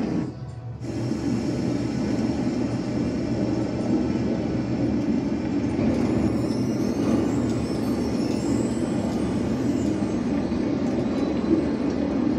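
A loud, steady, deep rumble from the soundtrack of a projected lava-cave film. It drops away briefly just after the start, and faint high whistling glides come in over the second half.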